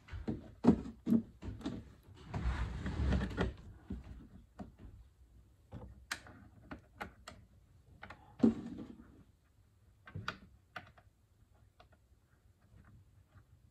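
Irregular knocks, taps and clicks of hands working a part into a boat's fibreglass helm dash panel, with a stretch of rustling about two to three and a half seconds in. The strongest knocks come about a second in, about six seconds in and about eight and a half seconds in.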